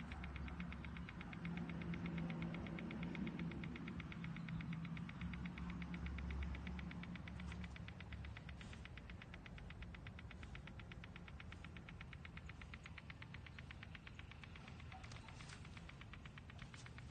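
Faint electrical humming with a rapid, even ticking pulse, typical of a PEMF therapy device running. A lower hum is stronger for the first several seconds and then fades.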